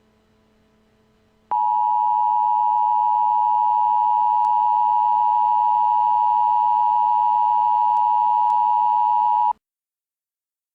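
Emergency Alert System attention signal: a loud, steady electronic tone starting about a second and a half in, held for about eight seconds, then cutting off abruptly. It signals that an emergency alert message is about to be read.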